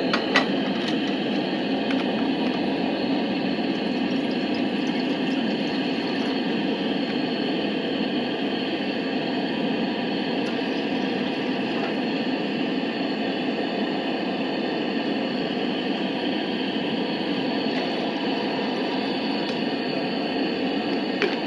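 Coleman propane camp grill's burner, just lit, running with a steady hiss.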